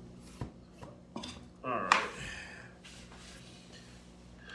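A few sharp clicks and clinks of small hard tools or parts being handled on a workbench, the loudest about two seconds in.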